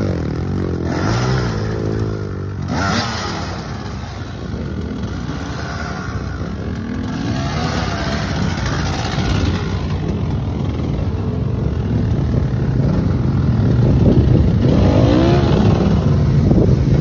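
Off-road motorcycle engines revving through a shallow river crossing, the pitch rising and falling in bursts of throttle, with water splashing and churning. It gets louder near the end as a bike rides through the water.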